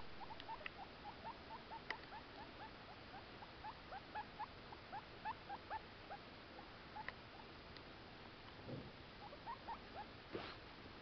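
Guinea pig licking a hand and giving a run of soft, short rising squeaks, about three a second, that thin out after the middle. A couple of brief brushing rustles come near the end.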